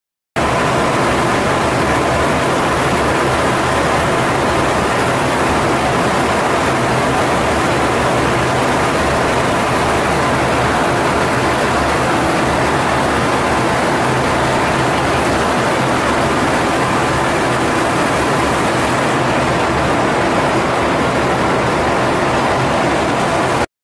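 Steady, loud rushing noise of airflow and engines inside the cockpit of an RC-135 in flight, with a faint steady tone running through it; it cuts off suddenly near the end.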